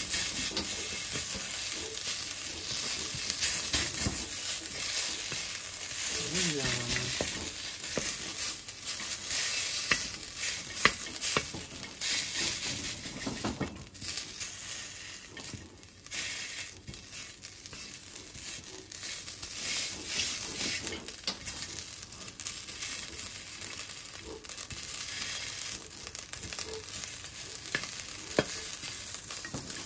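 Fried rice sizzling in a wok while a wooden spatula scrapes and turns it against the pan, giving a steady hiss broken by frequent short scrapes and taps.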